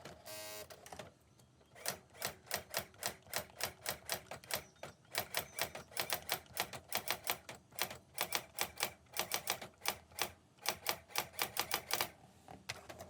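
Vintage typewriter being typed on: a fast, uneven run of key strikes, about four to five a second, starting about two seconds in and stopping about a second before the end.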